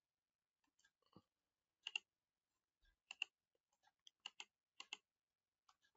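Computer mouse clicking: several short, sharp clicks spread over a few seconds, some in quick pairs like double-clicks.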